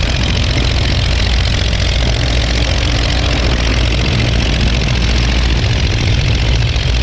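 Verner 3V three-cylinder air-cooled radial aircraft engine running steadily.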